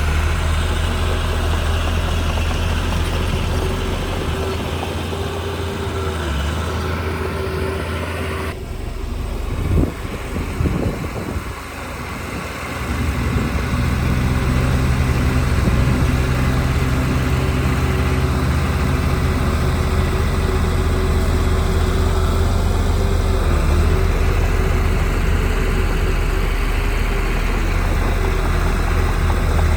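Heavy diesel engine of earthmoving machinery running steadily. About eight and a half seconds in the sound changes abruptly, wavers and dips for a few seconds, then settles back into a steady run.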